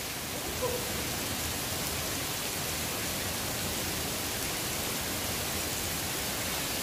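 Water showering down from a rock overhang and splashing onto stone: a steady, even rain-like hiss.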